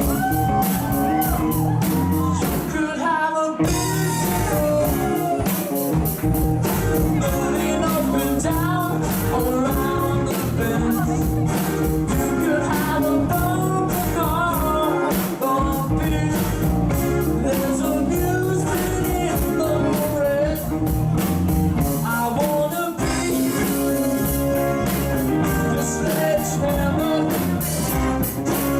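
Live rock band playing a song with lead vocals, electric guitar, bass and drums over a steady beat.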